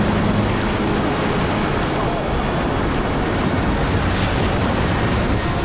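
Whitewater of a high-water river rapid rushing and churning around the raft, a loud, steady rush with no breaks.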